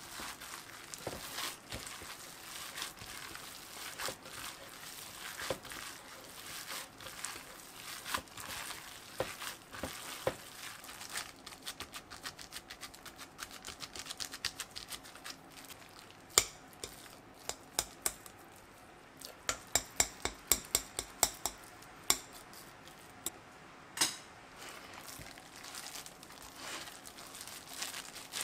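Hands in thin plastic gloves kneading ground meat for hamburg steak in a glass bowl: crinkling of the gloves over the wet squish of the meat. About halfway in come a run of quick sharp slaps and clicks as the mixture is pressed and worked.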